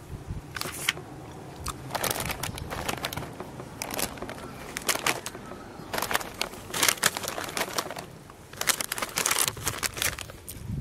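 A person chewing a chocolate-filled biscuit, mixed with the crinkling of a plastic snack packet, in irregular clusters of short crackly sounds. The packet crinkling is busiest near the end, as a snack bag is picked up.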